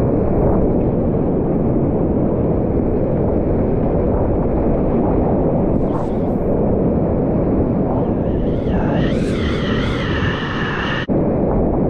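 Steady roar of whitewater rapids on a river at high flow (about 1100 cubic feet per second), heard from inside a kayak running the rapid. From about eight seconds in a wavering, pitched sound rises over the roar and cuts off suddenly about a second before the end.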